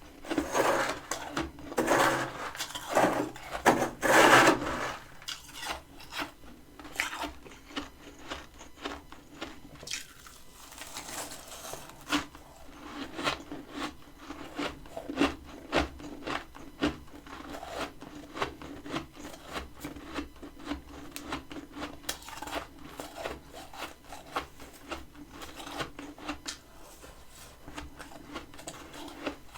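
Freezer frost being bitten and chewed: a few loud, rasping crunches in the first few seconds, then steady chewing with many small crackles.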